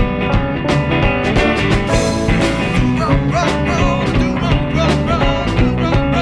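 Background rock music with a steady drum beat and guitar, and a bending lead line through the middle.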